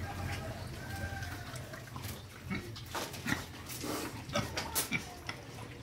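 Pigs feeding at a trough: a few short, pitched squealing calls in the first second or so, then a run of sharp clicks and snaps as they chew and root in the trough.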